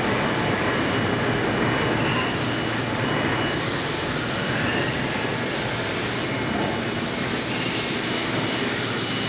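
Steady machinery running: a continuous rushing noise with a faint, steady high whine over it.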